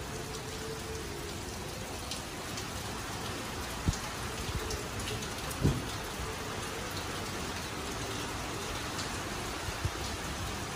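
Steady rain falling, with scattered ticks of single drops and two brief low thumps, about four and five and a half seconds in.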